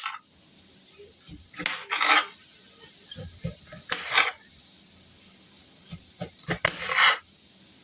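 Kitchen prep sounds: several short scrapes and clinks of a knife and utensils against a cutting board and dishes while broccoli is trimmed, over a steady high hiss.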